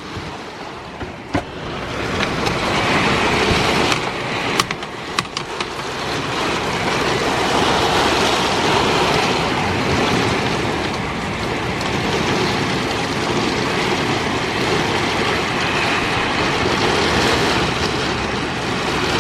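Thunderstorm wind and rain rushing, building over the first few seconds to a steady loud roar, with a few sharp knocks in the first five seconds.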